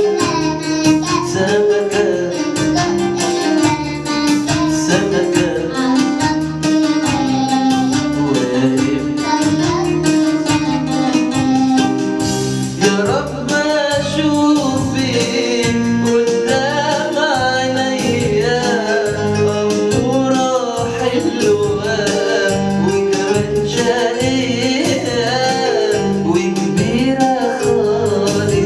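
A song: a voice singing a melody over instrumental backing with a steady beat.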